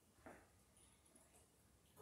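Near silence: room tone, with one faint short sound about a quarter second in.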